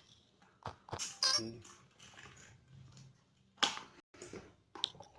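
Sharp clicks and knocks from handling the power lead of a removed refrigerator compressor as it is readied to be switched on, the loudest about three and a half seconds in, over a faint low hum.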